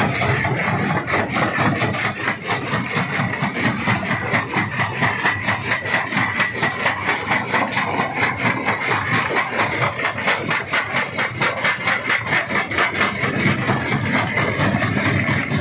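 Stone crusher running: a steady machine drone with a rapid, even pulsing of about four beats a second.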